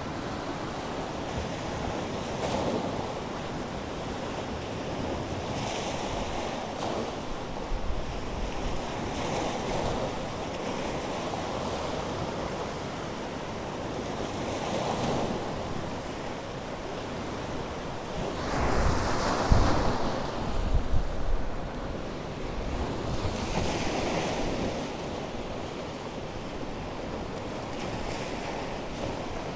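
Wind-driven storm waves on the Chesapeake Bay surging and breaking against boulders at the foot of a cliff: a steady wash of surf with a swell every few seconds, loudest a little past two-thirds of the way through. Wind buffets the microphone.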